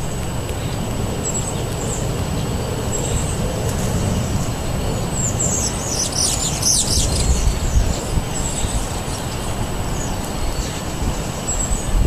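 Small songbirds chirping in short high notes over a steady low background rumble, with a quick burst of many high chirps about six seconds in.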